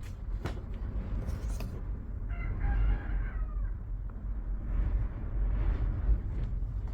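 A rooster crowing once, about two and a half seconds in, over a steady low rumble, with a few sharp clicks in the first second or two.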